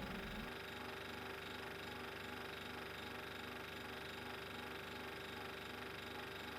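Faint steady hum with hiss and a couple of low steady tones, after the last of a plucked-string chord fades out in the first half second.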